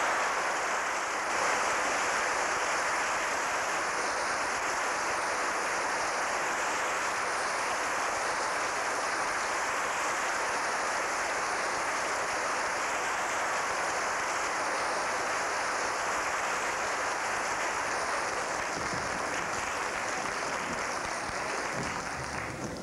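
A steady, even rushing noise with no pitch or rhythm, which fades out just before the end.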